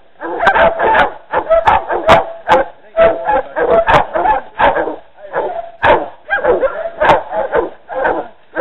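Hog-hunting dogs barking without a break, about two loud barks a second, as they bay in the brush.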